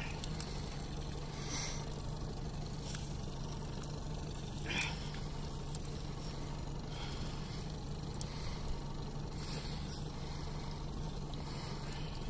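Steady low hum of an idling engine, with a few faint short swishes and clicks over it.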